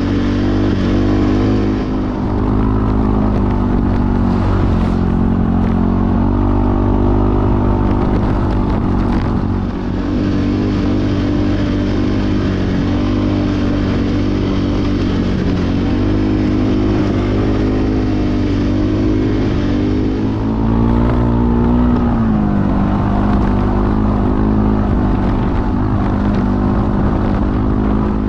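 ATV engine running under way on a trail, its pitch dropping and climbing again several times as the throttle is let off and opened.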